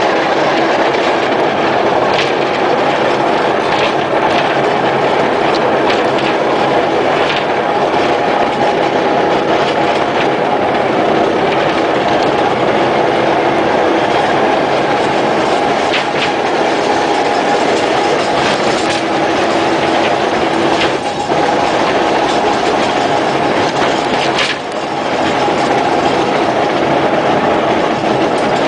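Small narrow-gauge rail vehicle rolling along the track: a steady hum with wheels clicking over the rail joints. The hum dips briefly twice in the last third.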